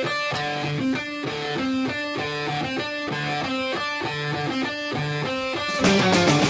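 Rock song opening with an electric guitar riff of repeated picked notes; the full band with drums comes in, louder, near the end.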